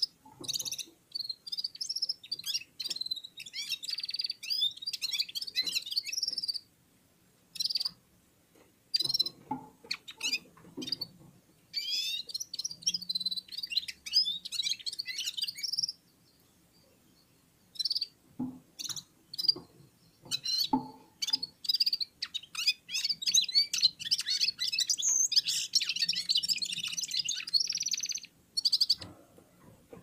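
Red-fronted serins singing, fast high twittering phrases that stop for a second or two now and then, with a few sharp knocks mixed in.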